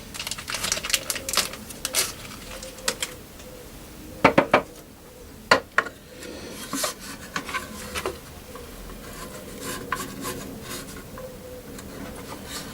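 Drawer knobs and their screws being handled and fitted: a string of light metallic clicks and clinks, with a few sharper knocks about four, five and a half and seven seconds in.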